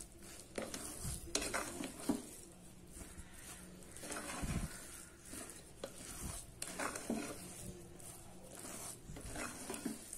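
Wooden spatula stirring and scraping cooked rice in a metal pressure cooker, mixing in the spice powder, with irregular knocks of the spatula against the pot.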